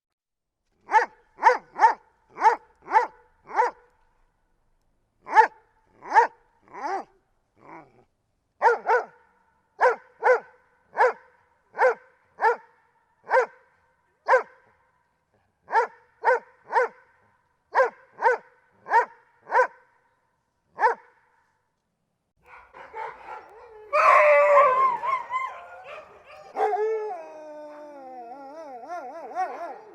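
A dog barking over and over in runs of three to six barks, about two a second, with short pauses between runs. About 23 seconds in it gives way to a louder, overlapping stretch of barking and howling whose pitch wavers and falls.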